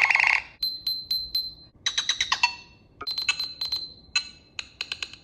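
A Nothing Phone (1) playing an electronic ringtone through its speaker: groups of sharp clicks and short high pings, coming about once a second in an uneven rhythm.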